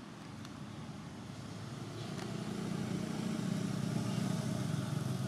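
A motor vehicle's engine running low and growing steadily louder as it comes closer.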